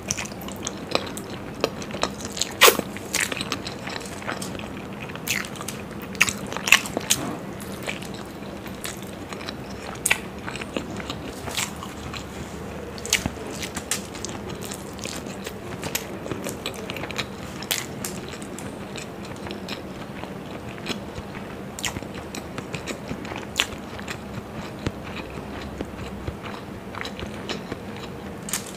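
Close-miked biting and chewing of masala-fried hard-boiled eggs: wet mouth sounds with irregular sharp clicks and smacks, the loudest bites a few seconds in.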